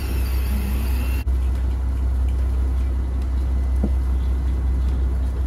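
Fishing boat's engine running with a steady low drone.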